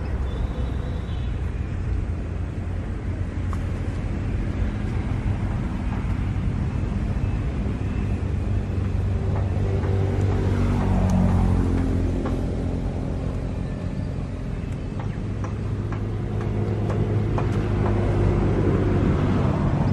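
An engine running nearby: a steady low rumble that swells about ten seconds in, eases off, then builds again near the end.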